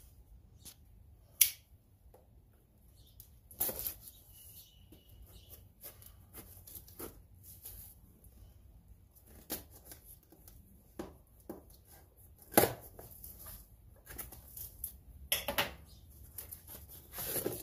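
Cardboard box being slit open with a pocket knife and its flaps pulled about: scattered scrapes, rustles and taps of cardboard, with a few sharper knocks.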